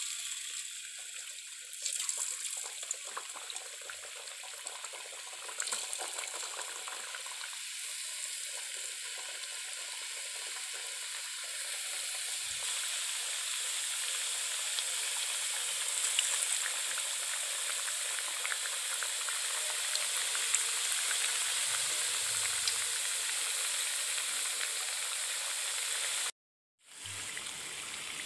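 Rice-flour chekkalu discs deep-frying in hot oil in a kadai: steady sizzling with fine crackles, growing louder about halfway through as more discs bubble in the oil. The sound breaks off for a moment near the end.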